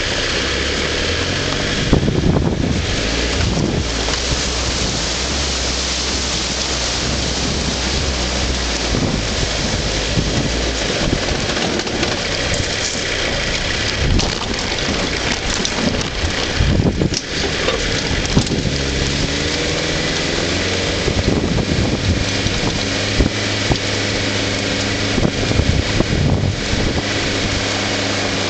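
Frontera 4x4's engine running as it drives over rutted, muddy off-road track, its note rising and falling with the throttle, under a steady rushing noise of wind and tyres, with occasional knocks as it jolts over the ruts.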